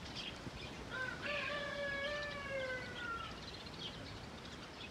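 Small birds chirping faintly. About a second in, a clear long tone slides slowly down in pitch for about two seconds, from a source that cannot be named.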